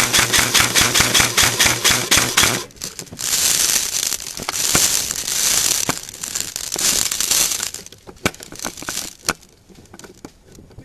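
Airsoft gun firing a fully automatic burst, about ten shots a second, that stops about two and a half seconds in. A few seconds of rustling noise follow, then scattered single sharp clicks near the end.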